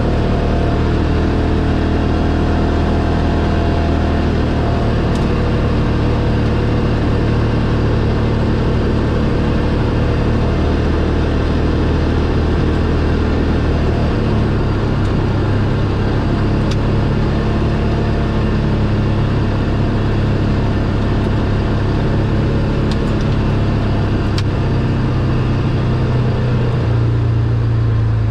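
Polaris RZR 570 side-by-side's single-cylinder engine running steadily under way, its note stepping up to a higher pitch about halfway through.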